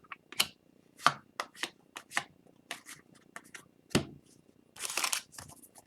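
Upper Deck Extended Series hockey cards being flipped through by hand: a string of light card snaps and slides, with a longer rustle near the end.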